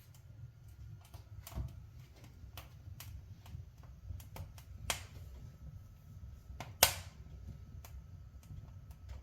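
Wood fire crackling in a fireplace: irregular sharp pops and clicks, the loudest two about five and seven seconds in, over a low steady rumble.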